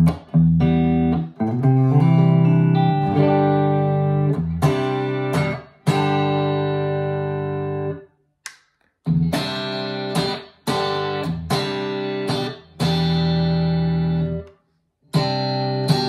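2023 PRS Special Semi-Hollow electric guitar played through an amplifier: chords struck and left to ring, changing every second or so. The sound stops dead twice, for about a second around the middle and for a moment near the end.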